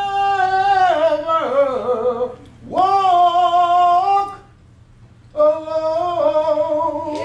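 A solo voice singing long held notes in three phrases, with short pauses between them.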